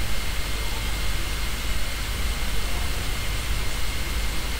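Steady background noise: an even hiss over a low rumble, with a faint steady high whine running through it.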